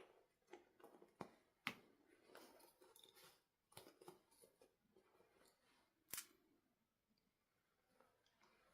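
Faint handling of toys and packaging: scattered light clicks and rustles, with a sharper click a little before two seconds in and another about six seconds in.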